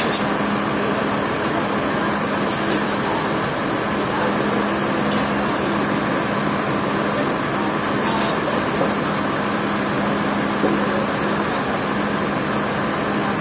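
Sawmill machinery running steadily: a continuous engine-driven hum with a constant low tone, and a few brief clicks.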